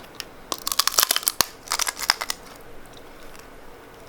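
A quick flurry of sharp clicks and crackling rustles lasting about two seconds, with one sharper click in the middle.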